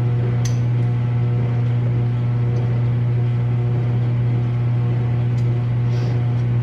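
Steady low electrical hum from a running kitchen appliance, unchanging throughout, with a couple of faint light clicks as a spoon works in a jar of dried parsley.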